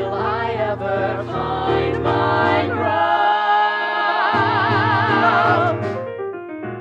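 A musical-theatre ensemble of several voices singing together in harmony over instrumental accompaniment. About four seconds in they hold a long note with vibrato, and the music then dies away near the end.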